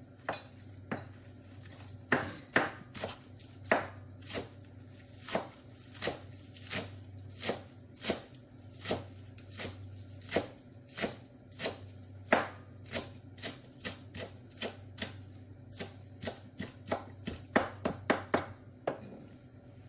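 Knife chopping on a cutting board: single strokes at an uneven pace of about one to two a second, coming faster in a quick run near the end.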